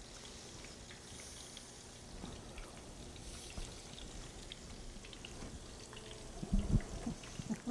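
Faint, steady crackle of meatballs cooking in oil in a pan on a low gas flame, with small scattered pops. A few short, low knocks come about six and a half seconds in.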